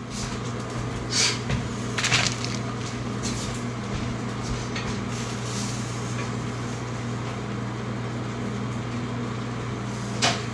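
A steady hum from a running kitchen appliance, with a few sharp knocks about a second in, at about two seconds and again near the end.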